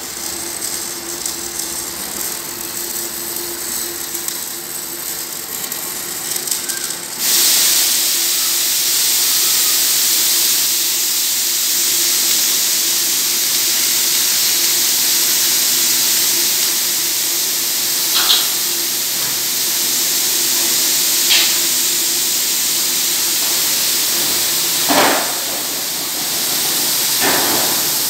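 A loud, steady hiss over a faint low hum, jumping suddenly louder about seven seconds in, with four short sharp sounds scattered through the last ten seconds.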